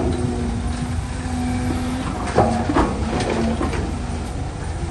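Caterpillar 320C hydraulic excavator working: a steady diesel drone with a hydraulic whine that shifts pitch a little after two seconds. From about two seconds in, a run of clattering knocks lasting about a second and a half, as soil and rocks from the bucket drop into a steel dump-truck bed.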